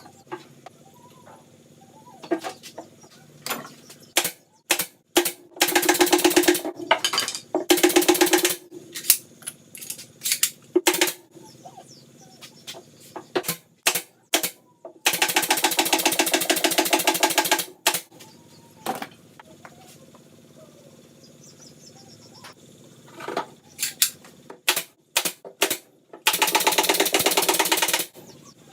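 Power screwdriver driving screws into a subwoofer cabinet in four short runs of fast rattling, the longest about three seconds. Clicks and knocks of parts being handled come between the runs.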